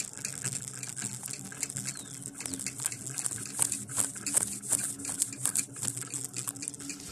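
Homemade winch's engine running steadily, a low even hum, with frequent sharp crackles and rustling over a high hiss.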